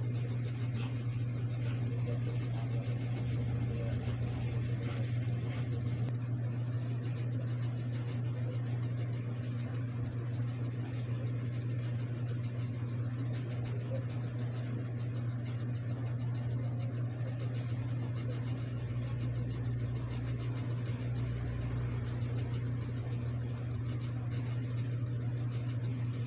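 A steady low hum at an even level, with a faint hiss above it.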